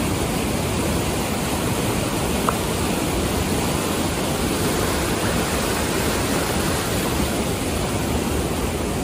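Glacier-fed mountain river rushing, a loud, steady wash of water noise.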